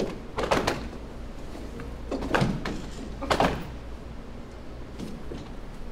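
A drill squad's shoes stamping on a wooden floor as the men march into line, halt and face front: a few short thuds, the loudest about half a second, two and a half and three and a half seconds in, over a steady low hum.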